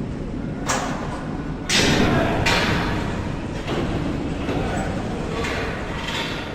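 Factory machinery ambience: a steady low rumble with several sudden noisy bangs or hisses. The loudest comes about two seconds in and fades over about a second.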